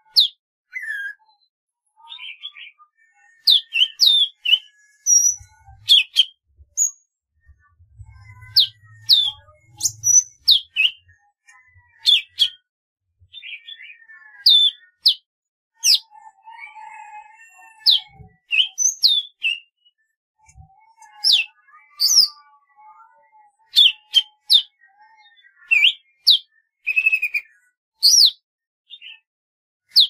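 Golden-fronted leafbird singing: a fast, varied run of sharp whistled notes and chirps, many sweeping quickly down in pitch, with short gaps between phrases.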